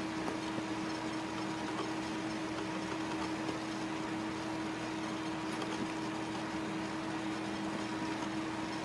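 Steady machine hum with one constant low tone and a faint even hiss.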